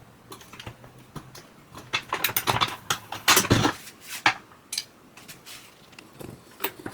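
Metal hand tools and hardware clinking and clicking against the dryer's drum roller parts during the roller fitting, with a dense run of clicks and knocks about two to four seconds in.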